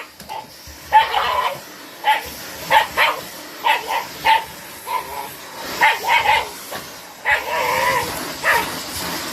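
Shiba Inu barking repeatedly in short, sharp barks in irregular clusters, then one longer, wavering bark-howl about seven seconds in.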